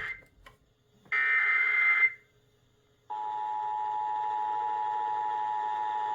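Emergency Alert System test coming over a radio: a one-second burst of the warbling digital SAME header data tones, following the tail of another burst at the very start. About three seconds in, the steady two-tone EAS attention signal begins.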